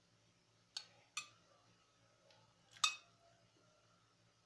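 Metal cutlery clinking against a plate while eating: three short clinks, each with a brief ring, the loudest a little under three seconds in.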